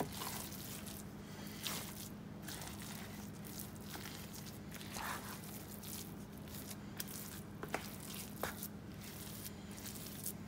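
A spatula folding and stirring moist cornbread dressing in a plastic bowl: soft wet squishing scrapes, with a few light ticks of the spatula against the bowl.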